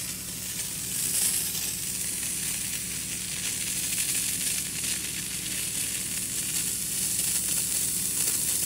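Sprinkler heads hissing steadily as compressed air blows a mist of leftover water out of the irrigation lines during a blowout. The hiss grows a little louder about a second in, over a low steady hum.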